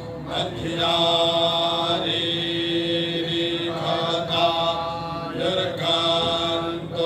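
Group of men reciting Vedic mantras in unison: a steady chanted line on held notes, breaking off briefly for breath about every two seconds.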